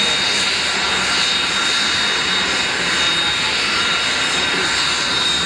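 Aircraft engine running steadily: a constant drone with a thin high whine that holds steady throughout.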